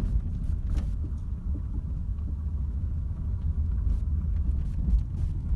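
Car driving with a steady low road rumble and scattered, irregular knocks from the suspension: a dull suspension knock that appears only once the car has warmed up, not when cold.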